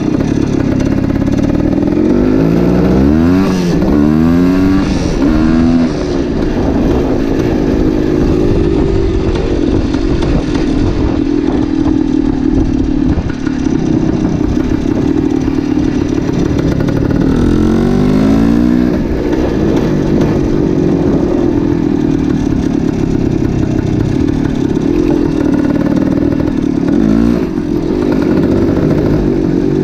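1972 Yamaha RT2 360's single-cylinder two-stroke engine under way, revving up and dropping back with the gear changes. There is a run of shifts a few seconds in and another around the middle, with steadier running between them.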